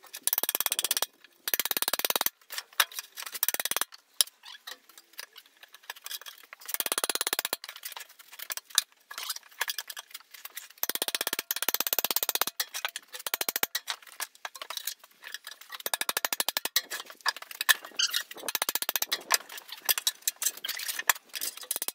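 Steel tyre irons scraping and clinking against a rusty steel wheel rim and rubber tyre bead as a tractor tyre is levered off. The sound comes in repeated bursts of rapid clicking and scraping with short pauses between them.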